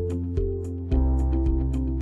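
Background music: soft instrumental with sustained chords, a deep bass note coming in about a second in, and a light regular beat.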